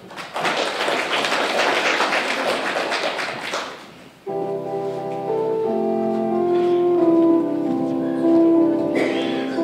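An audience claps for about four seconds. Then an electronic keyboard comes in suddenly, playing held chords and a melody whose notes change about once a second.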